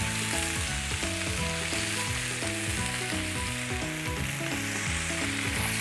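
Butter-marinated chicken pieces sizzling steadily in a hot oiled grill pan, just turned skin side up, with tongs shifting them about. Soft background music plays underneath.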